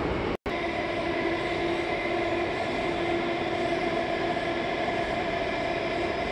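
NEL C751A metro train running, heard from inside the carriage: a steady rumble with a steady humming tone over it. The sound drops out for an instant about half a second in.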